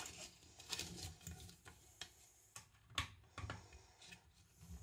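Faint, irregular light clicks and taps of objects being handled, the strongest about three seconds in, with no grinder running.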